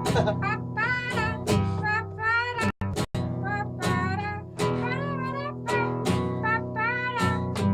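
Acoustic guitar strummed with a voice singing a wordless melody over it. The sound drops out twice, very briefly, about three seconds in.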